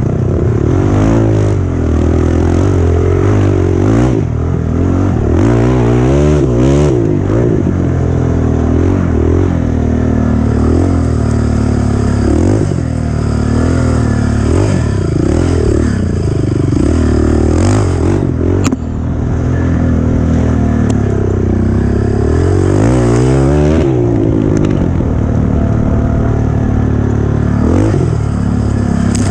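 Race ATV engine revving up and down continuously as the quad is ridden hard over a rough trail, with rattling and scraping from the machine. A single sharp click about two-thirds of the way through.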